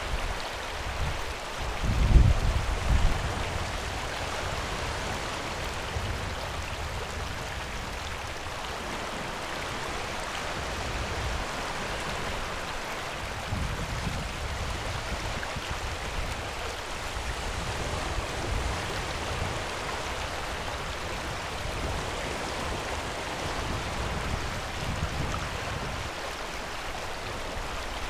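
Steady rush of running river water, with a few low thumps, the loudest about two seconds in.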